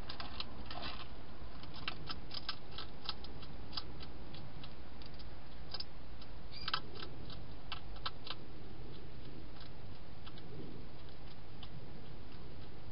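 Wild hedgehog crunching dry food: a run of sharp clicks and crackles, dense in the first few seconds and again around the middle, thinning out near the end, over a steady hiss.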